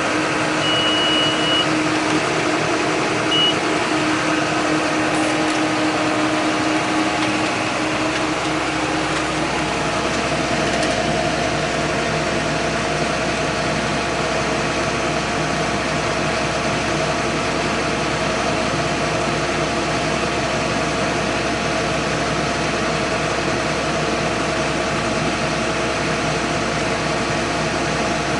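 John Deere 8100 tractor's six-cylinder diesel engine running steadily under load while baling. Its note shifts about a third of the way in as a deeper hum comes in. A short high beep sounds about a second in.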